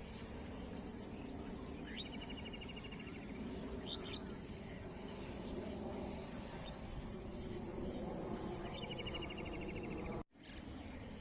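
Evening nature ambience: a steady high-pitched chorus of crickets over a low background rumble. Twice a bird gives a call that sweeps up and runs into a fast trill, with a short chirp between. The sound drops out briefly near the end, where the recording cuts.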